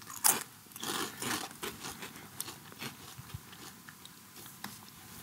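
Potato crisps being bitten and chewed, crunching. The loudest bite comes about a third of a second in, and a second cluster of crunches follows about a second in, then lighter crackles of chewing.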